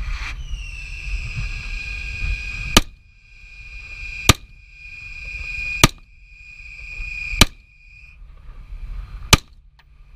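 AR-15 rifle fired five times at a slow, steady pace, a shot every one and a half to two seconds. A steady high ringing tone runs under the first four shots and stops shortly before the last.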